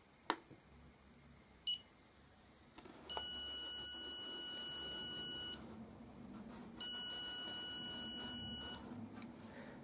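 Handheld stud and cable detector beeping: a short chirp, then two long steady beeps of about two and a half and two seconds as it picks up a cable behind the wall.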